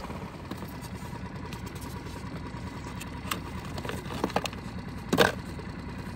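Small boat motor running steadily at low speed, a low pulsing rumble. A single brief sharp knock about five seconds in.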